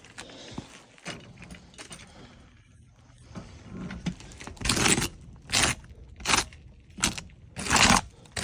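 Gritty scuffs and crunches on asphalt shingles: a few faint ticks at first, then about five louder, evenly spaced scrapes in the second half.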